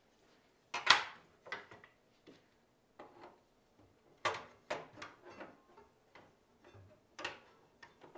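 A string of sharp clicks and knocks of metal and plastic parts being handled on a table saw, the loudest about a second in: the riving knife is taken off and the red throat-plate insert is set into the blade opening and pressed down into place.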